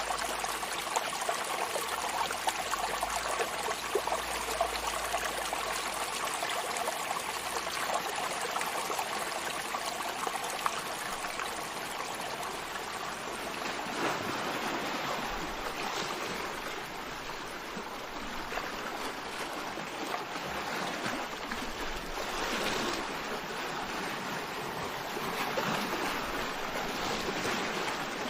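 Sea waves washing on the shore: a continuous fizzing, crackling wash of water in the first half, then several swells of surf building and falling away around the middle and again near the end.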